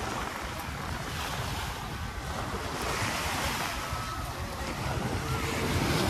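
Sea waves washing onto a sandy beach in a steady, swelling rush, with wind buffeting the microphone.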